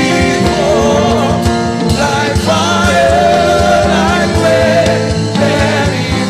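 Live gospel worship music: a band playing held chords over a steady drum beat, with a voice singing over it.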